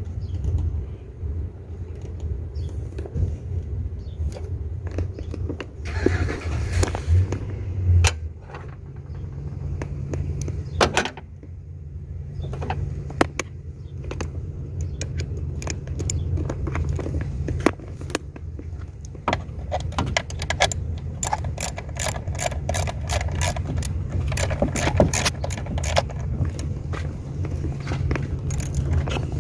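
Metal hand tools clicking, clinking and scraping against the engine parts during an EGR valve swap. The clicks come in scattered knocks at first and turn into a fast run of rapid clicks in the last third, over a steady low rumble.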